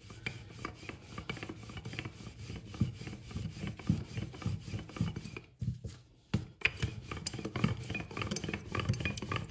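Wooden rolling pin rolling back and forth over soft, buttered paratha dough on a floured silicone mat: repeated rubbing strokes, with a brief lull about six seconds in.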